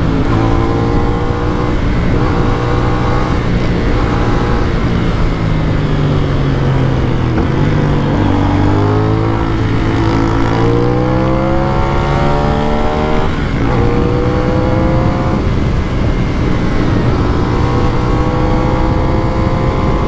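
CF Moto 450NK's parallel-twin engine with 270-degree crank, heard while riding. The engine note holds steady, then falls as the bike slows about a third of the way in. It then climbs under acceleration, drops sharply at a gear change about two-thirds of the way in, and settles into a steady cruise.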